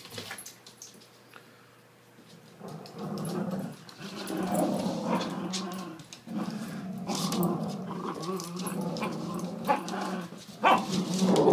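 Dogs, a golden retriever and a small terrier, growling in play while tugging on a toy. The growling starts a couple of seconds in and runs on in long stretches with short breaks.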